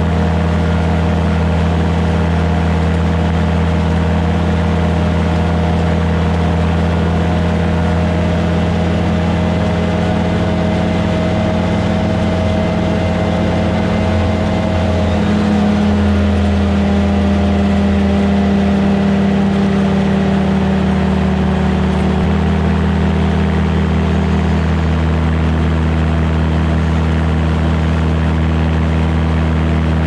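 Engine of a Lenzi slope mower running steadily under load as its front-mounted mower cuts standing grass. The engine note shifts slightly about halfway through and again a few seconds later.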